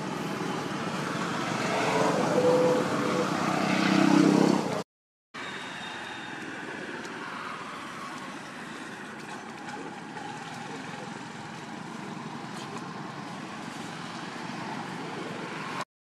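Outdoor background noise with a motor vehicle engine that grows louder over the first four seconds and breaks off at a short silence about five seconds in. After that comes a quieter, steady hum of distant traffic.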